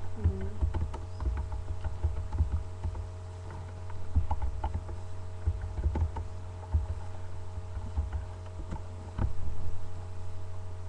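Soft, irregular knocks and thumps close to the microphone over a steady low electrical hum.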